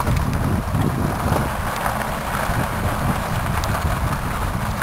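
Wheels of a small dog-drawn car rolling steadily over a gravel path behind a running sled dog team, with wind noise on the microphone.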